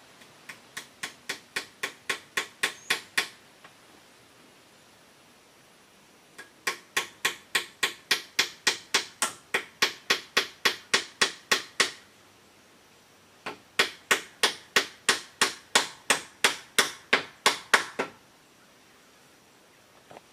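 A hammer driving nails to fix bamboo roofing onto a wooden pole frame: three runs of quick, even blows, about four a second, the first run growing louder.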